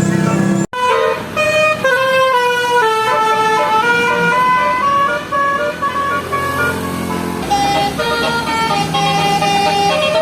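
Bus 'telolet' basuri musical air horn playing a tune of held notes that step up and down in pitch. It breaks off abruptly less than a second in, then starts again.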